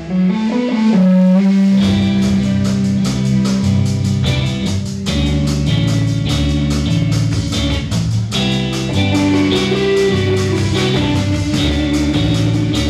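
Live rock band playing an instrumental passage on electric guitars and a drum kit. The low end drops out briefly at the start, leaving a held guitar note, before the full band comes back in about two seconds in.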